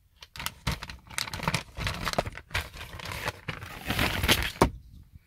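A clear plastic zip bag crinkling and rustling in irregular crackles as it is handled and a diagnostic cable is taken out of it. The crackling is loudest about four seconds in and dies away just before the end.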